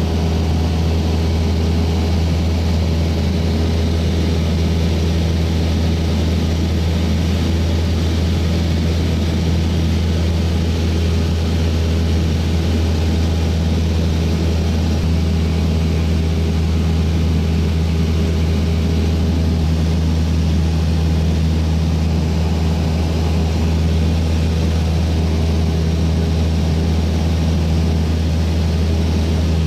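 Cessna light aircraft's piston engine and propeller heard from inside the cabin in steady flight: a loud, even drone that does not change.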